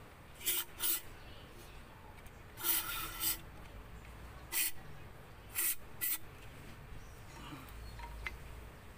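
Aerosol cleaner sprayed through a straw nozzle into a plastic brake fluid reservoir in six short hissing bursts, the third one longer, to flush dirt from inside it.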